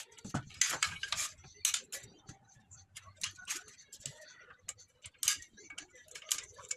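Irregular metallic clicks and clinks of small metal parts or tools being handled and set down.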